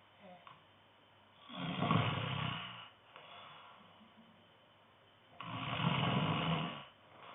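A man snoring: two loud snores about four seconds apart, each about a second and a half long, with a softer breath after the first and the next snore starting near the end.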